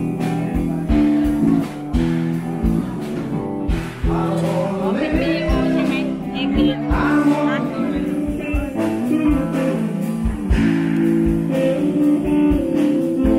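A song with guitar and a singing voice over a steady beat.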